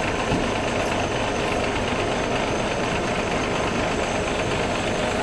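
Idling vehicle engines: a steady, even rumble and hiss with no sudden events.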